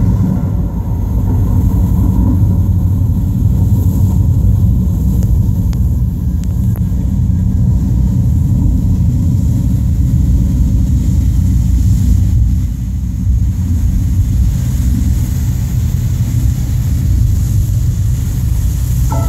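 Deep, steady rumble from a light-and-water show's soundtrack played over outdoor loudspeakers, briefly dipping about two-thirds of the way through before tonal music comes back in at the end.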